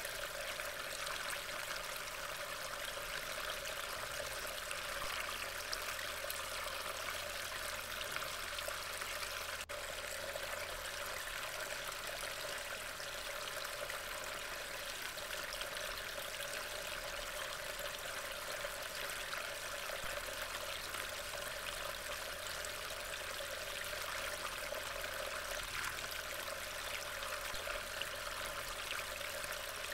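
Steady rain falling, an even, unbroken hiss of water through a trail camera's microphone.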